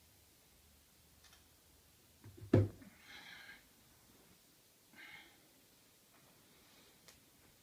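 A person getting up to sit on the edge of a bed in a quiet bedroom: one dull thump about two and a half seconds in, then two short, soft noises.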